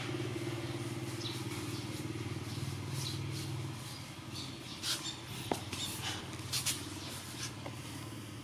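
A steady low motor hum that eases after about four seconds, with short scratchy clicks scattered through it.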